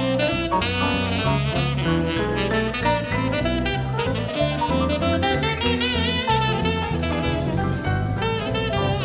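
Instrumental jazz: a saxophone plays the melody, with a wavering vibrato note about six seconds in, over bass and light drums.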